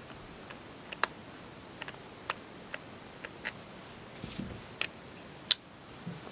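Small screwdriver clicking against a screw and the plastic casing of a toy's battery compartment as it is unscrewed: a string of sharp, irregular ticks, with a brief soft rustle about two-thirds of the way through.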